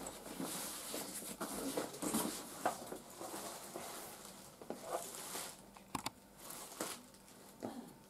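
Nylon fabric of a Shimano insulated fishing bag rustling and knocking lightly as it is handled and turned around, then quieter with a few faint clicks.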